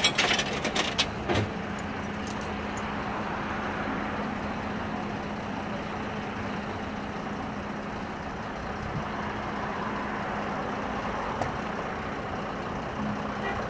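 Steady road traffic noise, a continuous hiss of passing vehicles with a low engine hum underneath. A few sharp clicks come in the first second or so.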